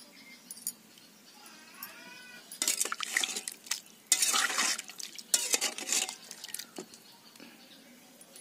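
A metal spatula stirring and scraping around a large metal pot of simmering mutton curry, in a run of loud, uneven scrapes and clatters. Just before the stirring, a short animal call rises and falls once.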